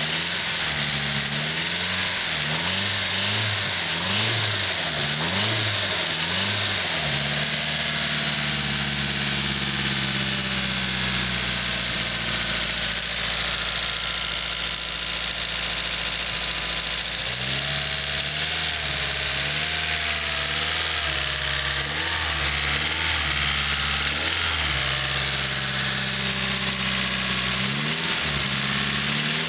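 Nissan SR20DET turbocharged four-cylinder engine blipped repeatedly, rising and falling in pitch about once a second, then settling to a steady idle for roughly ten seconds before being blipped again. The owner wonders whether a tick in it is the lifters, after the valve-cover hose came off during hard driving.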